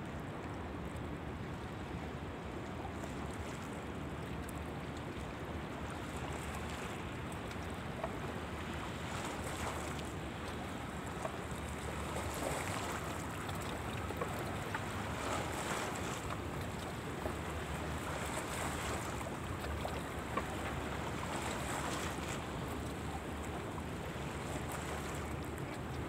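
Calm water lapping, swelling softly every few seconds, over a steady low rumble of wind.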